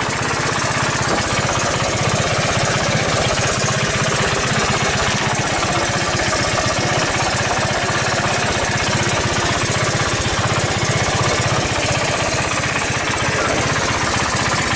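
1981 Honda ATC185S three-wheeler's single-cylinder four-stroke engine running steadily at idle.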